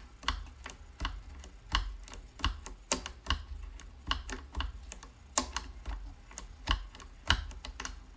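Stitch-pattern selector knob of a Singer 401A sewing machine turned by hand, clicking through its detent positions in a string of sharp clicks, about two to three a second.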